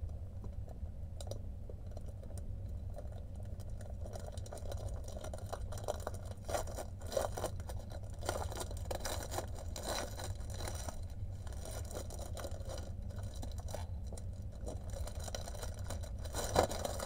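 Plastic packaging rattling and crinkling in irregular bursts as a wrapped diamond-painting canvas is handled, busier from about six seconds in, over a steady low hum.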